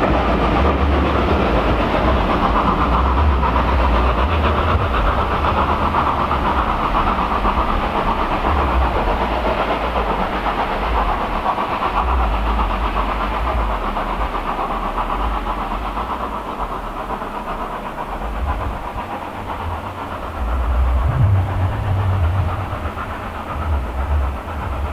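Steam-hauled train behind LSWR S15 No. 506 running away into the distance: a steady rumble of the train on the track that slowly fades.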